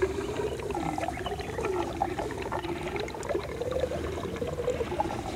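Orphaned baby elephant suckling milk formula from a bottle, with small wet clicks. Over it runs a long drawn-out tone that wavers slowly up and down.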